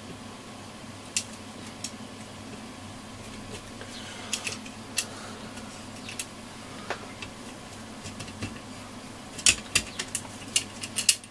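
Small metal tools on screws and nuts: scattered light clicks and taps of a screwdriver and nut driver as the amplifier board's fixings are undone, with a quick run of sharper clicks near the end.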